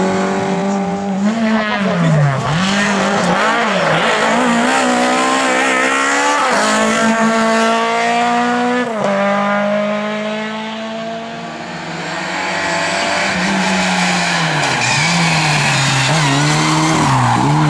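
Lada race car engine worked hard through corners, its pitch climbing and wavering up and down with the throttle, with a sharp drop about nine seconds in as it shifts gear, and tyre squeal.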